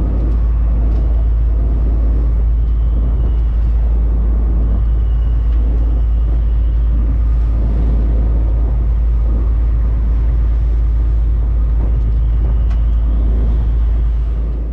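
Fishing boat running at speed: a steady, unbroken low rumble of engine and wind buffeting the microphone, over the rush of water along the hull.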